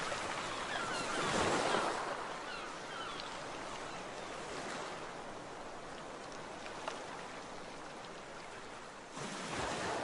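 Surf washing in as a steady rush of noise, swelling louder about a second in and again near the end, with faint gull calls in the first few seconds.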